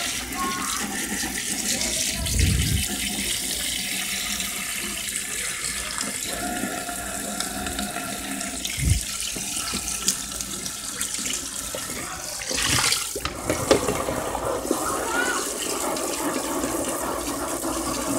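Kitchen tap running, its spray splashing onto a plastic tray held in a stainless steel sink as the tray is rinsed, with a couple of brief low bumps.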